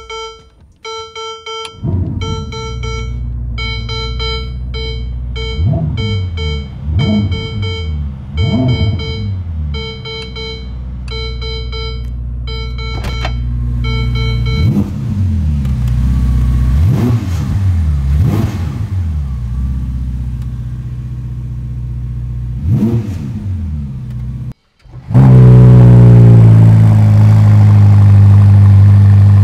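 Ferrari SF90 Stradale's 4.0-litre twin-turbo V8 revved in a series of blips, the pitch rising and falling each time. A beeping chime repeats about twice a second through the first half. After a brief cut near the end, the engine idles loud and steady.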